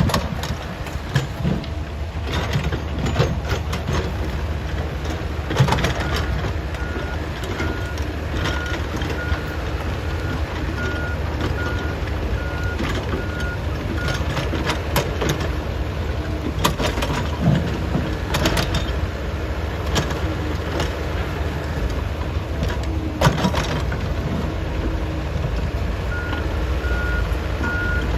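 Diesel engines of an excavator and a heavy truck running under load, with scattered metal knocks and clanks. A reversing alarm beeps about twice a second for several seconds, stops, then starts again near the end.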